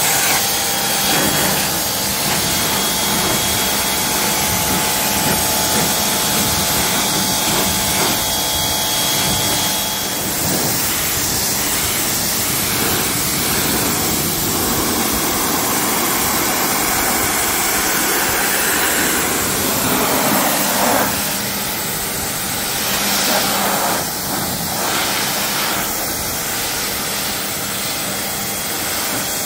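Craftsman pressure washer running, its jet spraying water onto a car's bodywork and windshield with a steady loud hiss that shifts in tone about two-thirds of the way through as the spray moves to another surface.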